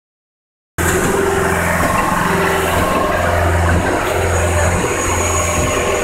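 An engine running steadily at constant speed with a deep hum, cutting in abruptly just under a second in.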